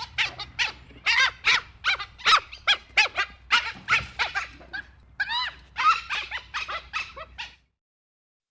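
Dhole (Asian wild dog) giving a rapid series of short, high yelping calls, each rising and falling in pitch, about three a second, which stop about seven and a half seconds in.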